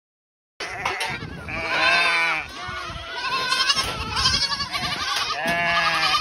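Goat kids and their mothers bleating over one another, many loud overlapping cries: kids being let out to their dams after supplementary feeding. It starts abruptly about half a second in.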